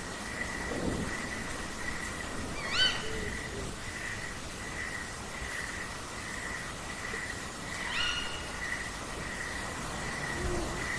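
Owls calling at night: low, soft hoots with two short rising calls, one about three seconds in and one about eight seconds in, over a steady, high, pulsing trill in the background.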